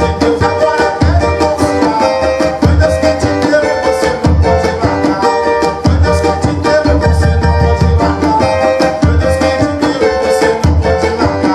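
Cavaquinho and tantan playing a Pentecostal corinho rhythm: quick strummed strokes over repeated low drum thumps.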